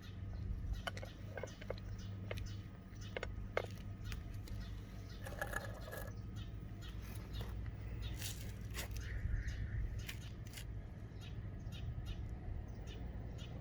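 A cat eating: a run of irregular short crunching clicks, with a brief animal call about five and a half seconds in.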